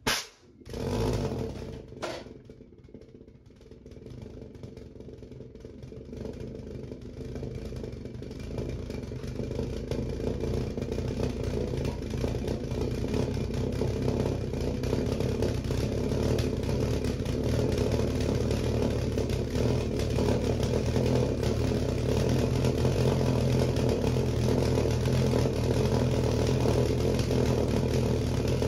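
Glass pasta-jar valveless pulse jet being lit through the hole drilled in its lid: two sharp ignition pops in the first two seconds, then a steady buzzing drone as the combustion settles into running. The drone builds in loudness over the first fifteen seconds or so and then holds steady.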